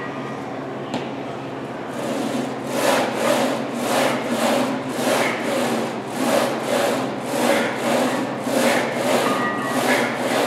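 Plate-loaded leg press sled sliding back and forth on its rails in steady, even strokes, a run of rubbing swishes about two and a half a second that starts about two seconds in, over a steady low hum.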